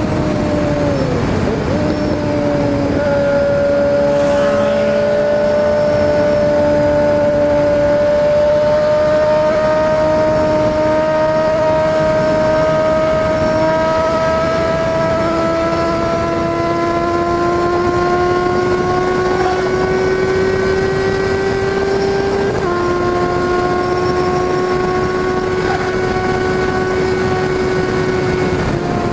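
Suzuki Bandit 650's inline-four engine running under way, its note climbing slowly as speed builds, with a sudden drop in pitch about three-quarters through, over a steady rush of wind.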